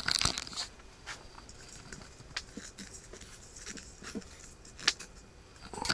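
Light bulbs being unscrewed from their sockets on a string of tent lights: scattered small clicks and faint squeaks of handling, with one sharper click about five seconds in.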